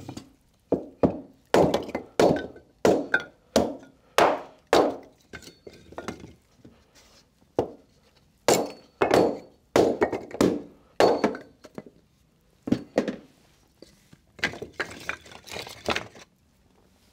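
Hatchet chopping a block of wood into kindling on a wooden deck: a run of sharp chops about two a second with a couple of short pauses. Near the end comes a quicker clatter of split sticks knocking together as they are gathered up.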